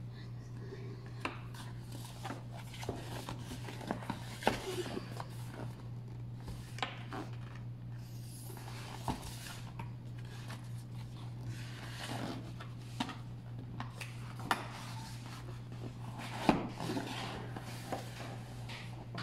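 Cardboard laptop box being handled and opened by hand: scattered taps, scrapes and rustles of cardboard, with a couple of louder knocks, over a steady low hum.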